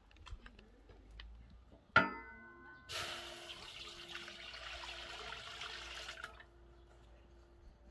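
A metal lid clangs once against a large metal cooking pot, ringing briefly. About a second later water pours into the pot for about three seconds, then stops.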